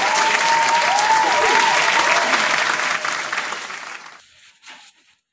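Crowd applause with a few rising-and-falling tones over it, fading out about four seconds in.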